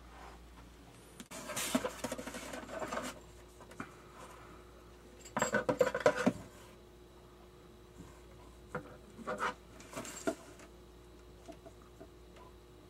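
Rustling and scraping from a small cardboard box being handled and opened, in two bursts about a second in and about five seconds in, followed by a few light taps.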